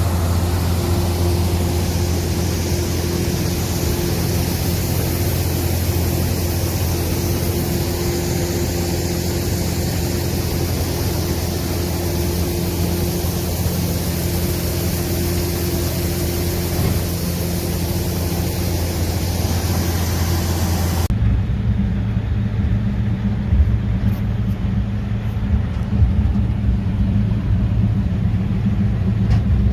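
New Holland TX66 combine harvester running steadily with a low, even engine hum. About two-thirds of the way through, the sound changes abruptly: the hiss above drops away, leaving a duller, deeper hum.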